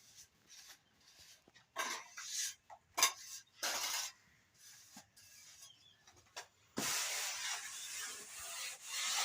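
Plastering trowel scraping and spreading cement plaster in irregular strokes, with a sharp knock about three seconds in and a longer continuous scrape over the last two seconds or so.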